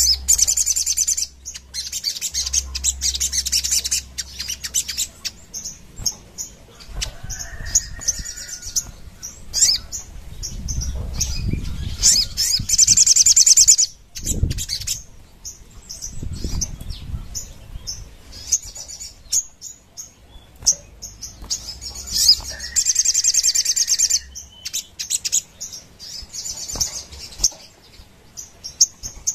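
Caged sogon (a sunbird) singing in loud, high-pitched, rapid trilling bursts of a few seconds each, repeated several times. Its wings flutter against the perch between the bursts.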